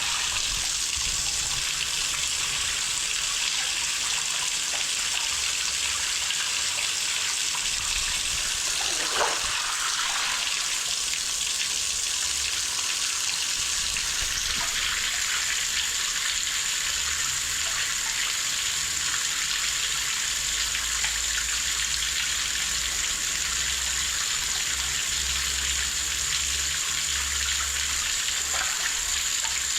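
Water running steadily, with a faint low hum underneath that grows stronger about halfway through.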